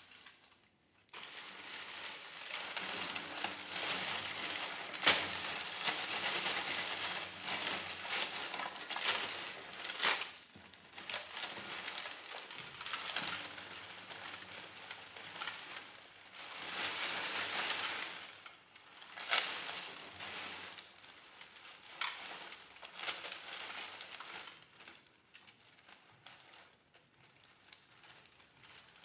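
Cello hung with chains of safety pins over its strings, bowed so the pins rattle and buzz against the strings and body in a noisy rasp that swells and fades, with a few sharp clicks. It grows quieter near the end.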